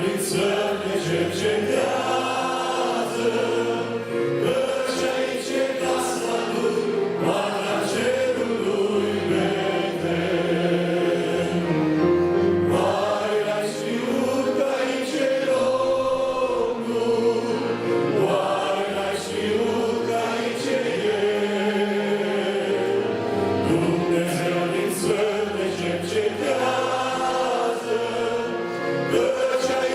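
Church choir singing a Romanian hymn, several voices together in a steady, continuous line.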